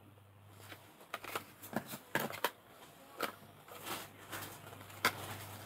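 Small cardboard cosmetic boxes and their packaging being handled and turned over in the hands: irregular light crinkles, taps and rustles, beginning about a second in.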